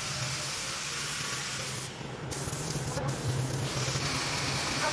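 Gravity-feed air spray gun hissing as it sprays a clear finish onto a wooden tabletop, broken briefly about two seconds and three seconds in.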